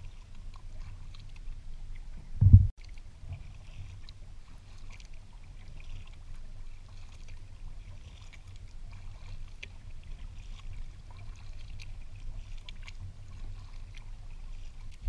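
A kayak being paddled on calm water: faint drips and small splashes over a steady low rumble. One loud, short, low thump about two and a half seconds in.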